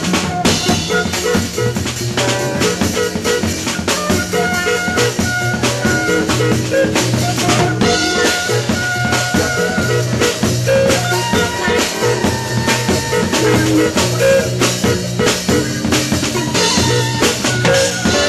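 Live jazz ensemble playing: busy trap-drum kit with many sharp hits over a bass repeating sustained low notes, with pitched melodic lines above.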